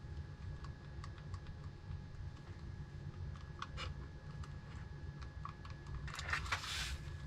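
Light clicks and taps of hard plastic skeleton-bird parts being handled and fitted together, with a short scraping rustle about six seconds in, over a steady low hum.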